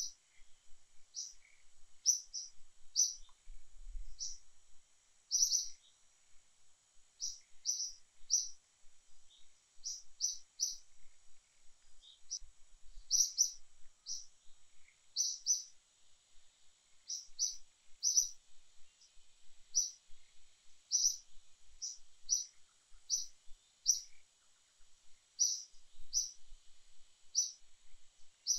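A bird chirping: short high chirps, one to three at a time in quick succession, repeated every second or so, over a faint steady high hiss.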